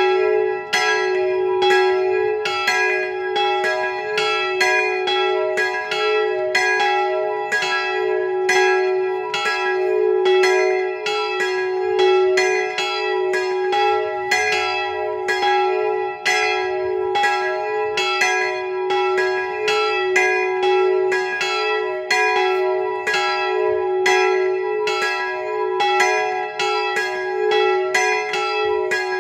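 Three swinging church bells pealing together, their clappers striking in an overlapping, uneven rhythm over a continuous ringing hum. The smallest bell's clapper strikes twice per swing. Two of the bells are tuned to E and G-sharp.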